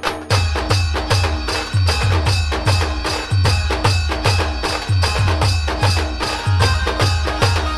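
Live Adivasi band music: a fast, steady dance beat of deep booming drum hits, roughly three a second, with clacking percussion and a melody on top. The full beat comes back in just after the start, following a short break.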